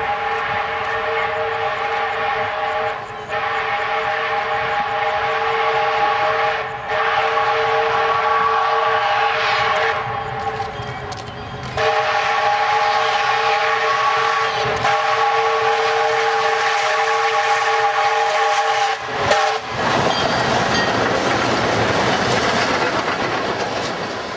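Iowa Interstate QJ 2-10-2 steam locomotive sounding its multi-note whistle in a string of long blasts, the last held for about seven seconds. Near the end the whistle stops and the locomotive and its freight cars rush past.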